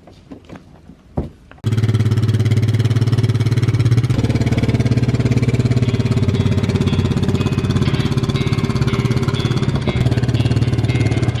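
A few faint clicks, then about a second and a half in a loud, steady, low machine hum switches on suddenly and keeps going.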